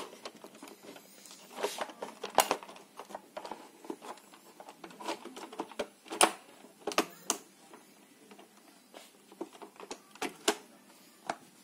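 Sharp plastic clicks and snaps as the top cover of a Dibea D900 robot vacuum is pressed down and clipped onto its body, coming at irregular intervals with light handling rustle between them.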